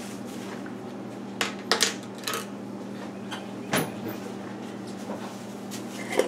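Scattered light clicks and knocks of kitchen handling, with the loudest knock about halfway through, over a steady low hum.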